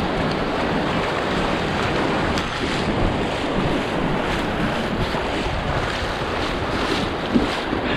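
Strong wind buffeting the microphone over heavy waves breaking on a lakeshore: a steady, dense rushing, with one brief louder bump near the end.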